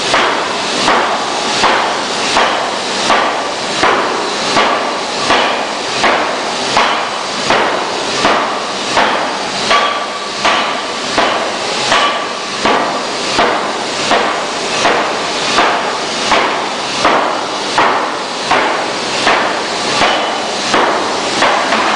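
C41-2000kg pneumatic forging hammer striking a red-hot steel flange blank in a steady, even rhythm, about three heavy blows every two seconds.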